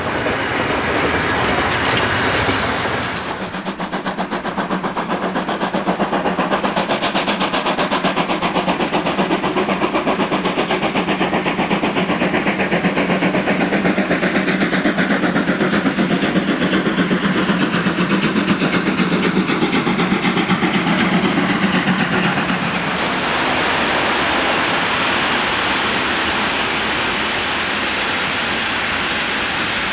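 DB class 50 steam locomotive 50 622, a two-cylinder 2-10-0. Steam hisses for the first three seconds. After an abrupt change it works a train with a fast, regular beat of exhaust chuffs while steam blows from its cylinders. About 23 seconds in, this gives way to the steadier running and clatter of its coaches rolling past.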